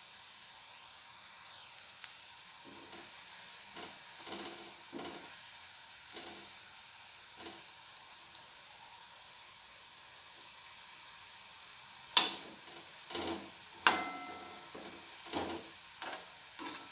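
Vadas sizzling steadily as they deep-fry in hot oil in a kadhai, with a steel slotted spoon stirring and turning them in soft knocks. From about twelve seconds in come several sharp metallic clinks of the spoon against the pan, each ringing briefly; the first is the loudest.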